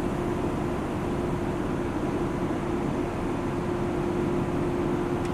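Machinery of a fiberglass chopper-gun spray rig running steadily: an even hiss with a constant low hum that does not change.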